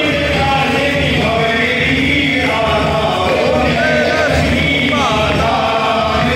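Hindu devotional aarti singing with music: voices chanting together over instrumental accompaniment, loud and steady, during the lamp-waving worship.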